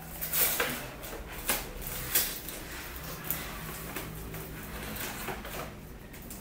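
Gift-wrapping paper rustling and crinkling as a child's hands pull and tear it off a long box, with a few short sharp crackles.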